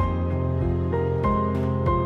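Background music: a gentle, tender instrumental tune of held notes changing about every half second.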